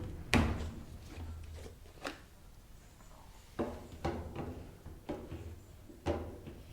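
Irregular knocks and clunks of hard objects being handled, about six in all, each dying away quickly in a small room.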